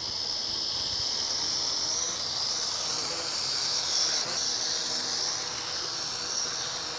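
X-31 Skyrider Shockwave mini quadcopter flying overhead, its motors and propellers making a steady high whine that wavers slightly in pitch as it manoeuvres. It gets a little louder about four seconds in as the drone passes close.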